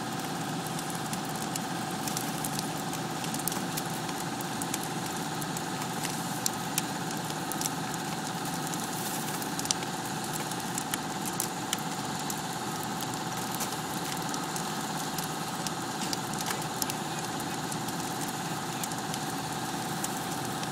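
Steady engine drone with a constant high hum, typical of a fire engine running its pump to supply hose lines. Scattered crackles and a few sharp pops come from the burning motorhome.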